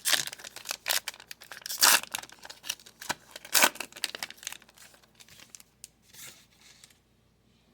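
Foil trading-card pack wrapper being torn open and crinkled, a dense crackle that thins out over the first five seconds and stops.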